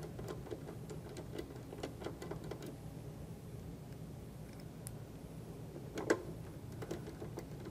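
Faint scattered clicks and taps of a hex screwdriver setting and driving small 2.5 mm Allen screws into a machine's front plate, with one sharper click about six seconds in.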